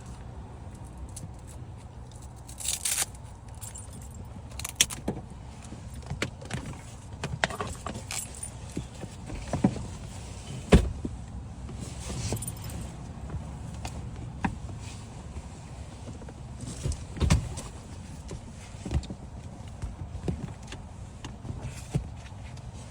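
Irregular metallic clinks, clicks and knocks of equipment being unstrapped and handled, over a steady low rumble. The loudest are two sharp knocks, about eleven seconds in and about seventeen seconds in.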